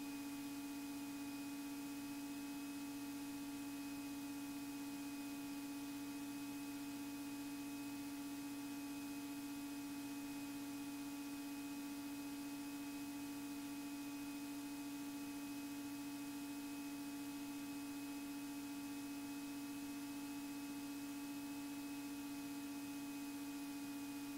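Faint, steady electrical hum at one fixed pitch with several overtones, over a light hiss. It does not change at any point.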